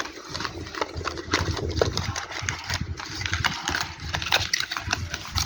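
Packaging being handled during a phone unboxing: many quick, irregular clicks and taps with some rustling and a low rumble underneath.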